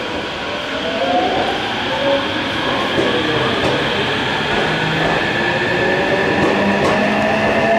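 Electric commuter train on the move, its traction motors whining in tones that climb in pitch, the sign of the train accelerating, over the steady rumble of the cars.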